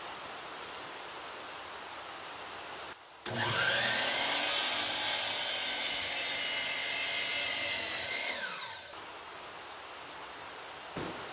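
DeWalt miter saw motor starting with a rising whine about three seconds in, its blade cutting through a wooden board for several seconds, then the motor winding down with a falling whine.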